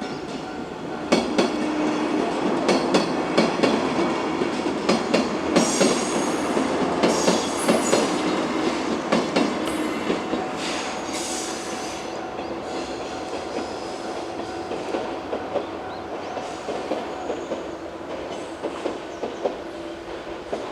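103 series four-car electric train passing, its wheels clacking rhythmically over the rail joints. It grows loud about a second in, is loudest up to about ten seconds in, then fades as the last cars go by.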